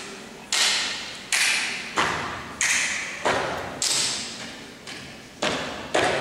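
A step team's stomps and claps, sharp hits about two-thirds of a second apart with a pause in the middle, each ringing out in a large hall.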